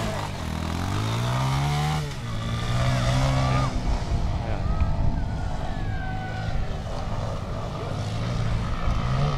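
Off-road motorcycle engine revving, its pitch rising and falling with the throttle over the first two seconds, then running steadier.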